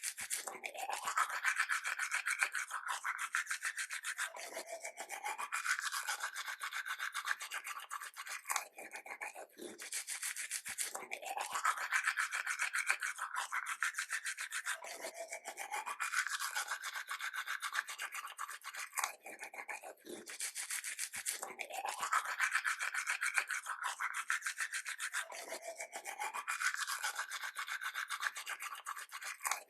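Toothbrush scrubbing teeth in fast back-and-forth strokes, the scrubbing pitch sliding up and down as the brush moves around the mouth. The same stretch of brushing repeats about every ten seconds.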